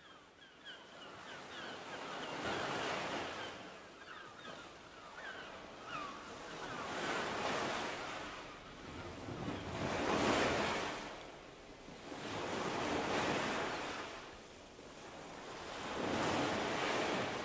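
Wind gusting over the microphone, a rushing noise that swells and dies away about every three seconds, with faint bird chirps in the first few seconds.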